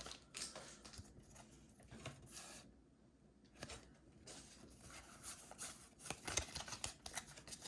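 Faint scattered rustles, scrapes and soft ticks of trading cards and a freshly opened Pokémon booster pack being handled.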